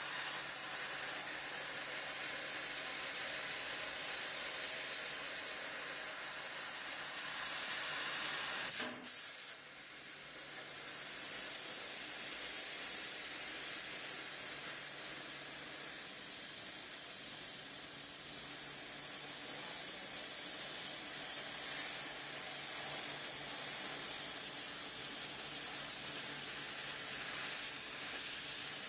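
Steady hiss of a 1000 W Senfeng fiber laser cutting head's assist-gas jet as it cuts 5 mm stainless steel plate, with a low steady hum beneath. The hiss breaks off briefly about nine seconds in.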